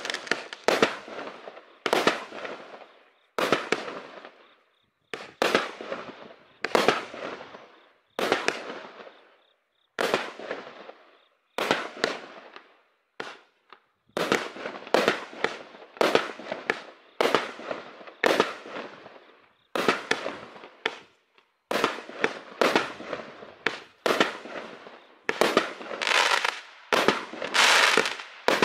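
NICO Pyro Conversion 24-shot, 30 mm fireworks battery firing shot after shot, about one a second, each a sharp bang followed by a fading crackle. Near the end the shots come closer together and overlap into a denser, louder stretch of bangs and crackling.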